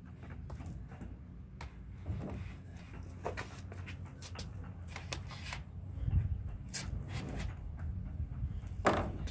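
Irregular knocks and scuffs from a plastic kayak being shifted on a wheeled kayak cart, over a steady low rumble, with a sharper knock near the end.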